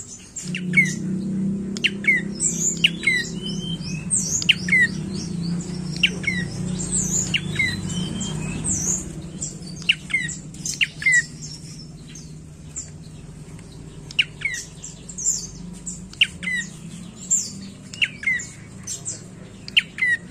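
Caged prenjak coki tailorbird calling: sharp, high notes that drop quickly in pitch, in quick runs again and again. A low hum underneath fades about halfway through.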